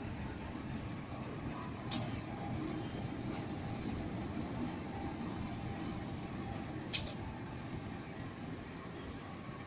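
CC 201 diesel-electric locomotive (GE U18C type) running with a steady low engine rumble as it shunts slowly past. Two sharp clicks sound about two and seven seconds in.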